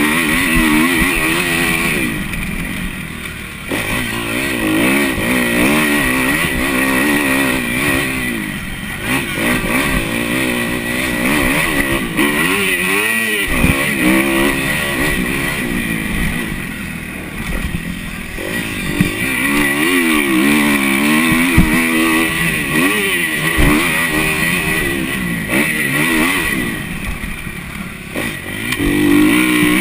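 Kawasaki KX250F motocross bike's single-cylinder four-stroke engine, heard close up from on the bike, revving up and dropping back over and over as it is ridden hard around a dirt track, its pitch climbing and falling every second or so.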